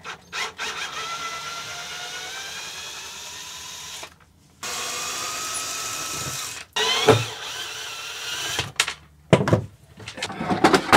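Cordless drill-driver running twice, for about three and a half seconds and then about two seconds, undoing the screws of a cabin floorboard. A few knocks and clicks follow.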